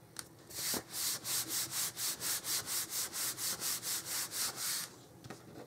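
Quick, even back-and-forth rubbing on paper, about five strokes a second for some four seconds, as a patterned paper panel is pressed and smoothed down onto cardstock.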